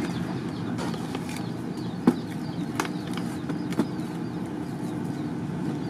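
A few sharp knocks, the loudest about two seconds in, as a blue plastic fan blower is handled and set against a brick beside the forge, over a steady low rushing noise.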